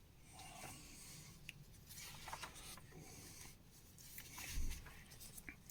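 Faint rustling and rubbing of magazine pages being handled and turned, with a few small ticks and a soft low bump about four and a half seconds in.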